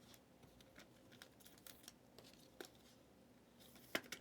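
Faint scattered clicks and taps of trading cards being handled and shuffled through, with a sharper click about four seconds in.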